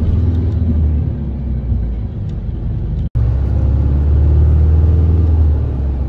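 Coach bus driving, heard from inside the cabin: a loud, steady low engine and road rumble that drops out for an instant about halfway through.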